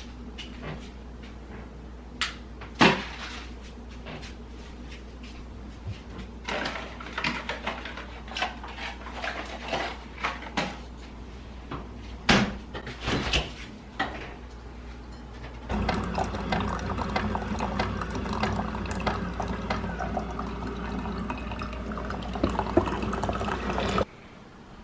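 Cups and utensils clinking while coffee is made, then about eight seconds of liquid running steadily, cutting off suddenly near the end.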